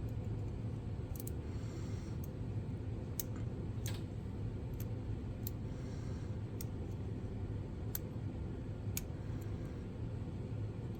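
Lock pick and tension wrench working the pins of a lock: scattered, irregular faint metallic clicks over a steady low hum.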